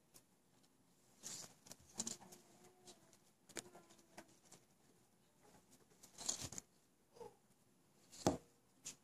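Quiet, scattered rustling and tapping from hands handling a plush toy dog purse, with a few louder brushing rustles and a sharp tap about eight seconds in.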